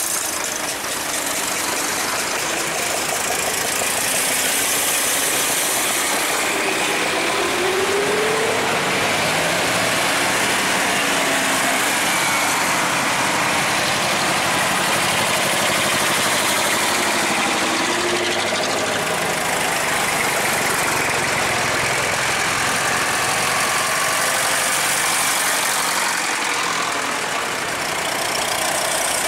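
Vintage tractor engines running at low speed as the tractors drive past one after another in a parade.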